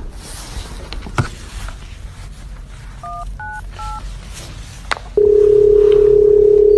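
Three short telephone keypad touch-tones (DTMF beeps) in quick succession about three seconds in, then, about five seconds in, a loud steady phone-line tone that holds for about two seconds as the call goes through. A few faint taps and clicks come before.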